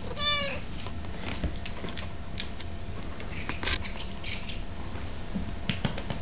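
Cornish Rex cat giving one short, high meow right at the start, followed by scattered soft ticks as it walks on the wooden floor.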